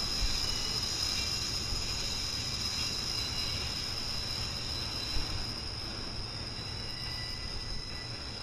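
Freight train of flatcars loaded with continuous welded rail rolling away, its low rumble slowly fading. A steady high-pitched whine runs above it.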